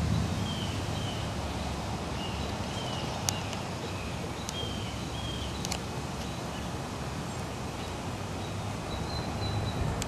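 Outdoor ambience: a steady hiss of wind and rustling leaves, with short high bird chirps recurring every second or so.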